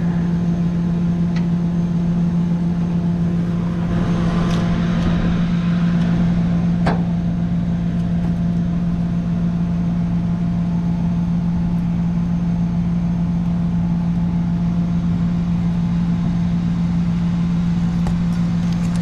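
Tow truck engine idling steadily as a low, even hum, with a few light knocks and a brief rustle over it.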